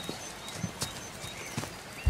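A few faint, sharp knocks at uneven intervals over a quiet background.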